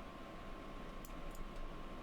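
A few faint computer mouse clicks, two close together about a second in, over steady room hiss with a thin constant hum.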